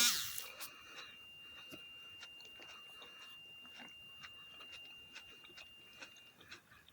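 Soft, faint chewing of grapes with scattered small mouth clicks, over a faint steady high tone that stops near the end. A louder ringing sound fades out in the first half second.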